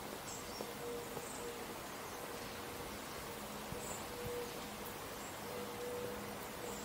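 Quiet outdoor ambience: a steady hiss under a faint, wavering low hum, with a few short, high chirps scattered through it.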